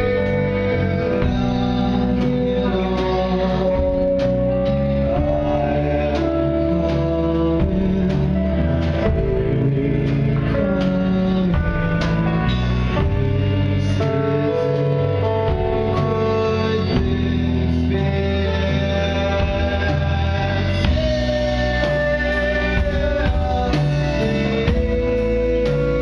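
Live rock band playing: bass guitar, guitars, keyboard and drums, with singing.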